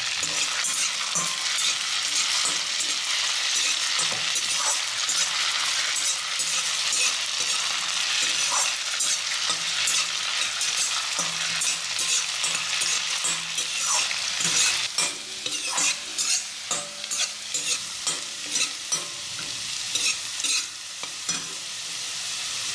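Diced potatoes sizzling as they fry in hot butter and olive oil in a steel kadai, stirred with a perforated metal slotted spoon that scrapes and knocks against the pan. The spoon's knocks come louder and more often from about halfway through.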